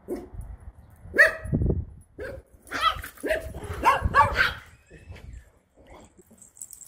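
Dog barking: a quick string of short, sharp barks from about a second in to the middle, then only faint sounds.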